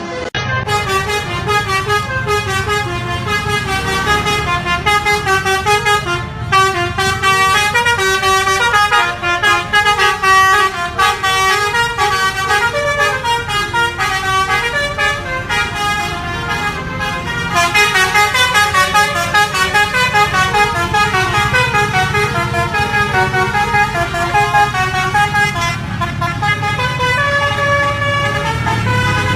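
Telolet basuri multi-tone bus horn playing a tune as a quick run of changing notes, over the low, steady running of the bus engine.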